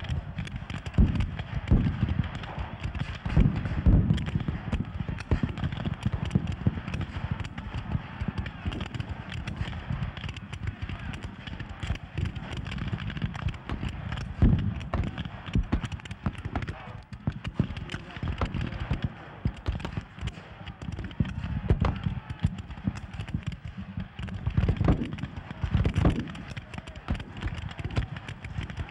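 Black-powder muskets firing blank charges in scattered shots and ragged volleys, dull thumps that come thickest in the first few seconds and again near the middle and end, over a steady din of men's voices shouting.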